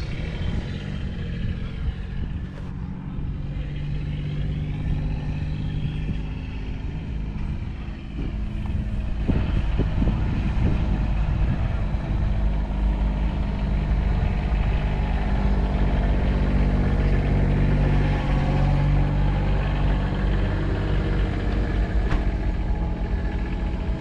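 1954 JCB Mk1 backhoe's four-cylinder diesel engine idling steadily, a little louder from about eight seconds in.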